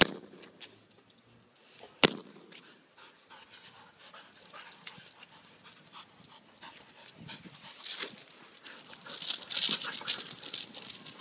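Two dogs, an Alaskan Malamute and another dog, panting as they play and chase each other, louder in the last few seconds. A single sharp click about two seconds in.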